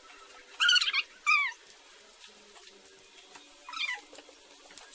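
Three short, high-pitched squeals from a toddler, each falling in pitch: two close together about half a second and a second in, and a softer one near the end.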